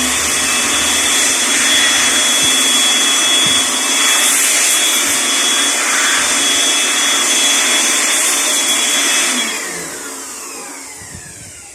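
Small electric vacuum or blower running steadily with a high whine, used to clean brake dust off a disc brake. It switches off about nine and a half seconds in, and its motor winds down with falling pitch.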